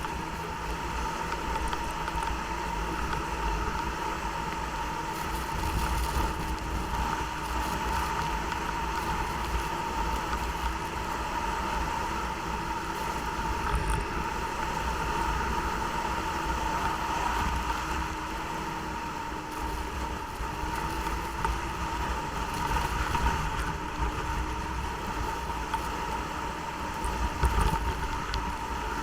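Snowmobile running at a steady speed while riding, a constant engine and drive drone with a steady high whine and a low rumble underneath.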